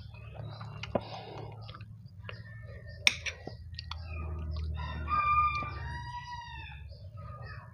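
A rooster crowing once in a long call that rises and falls, about four seconds in. Earlier there are a couple of sharp clinks of a utensil against a dish.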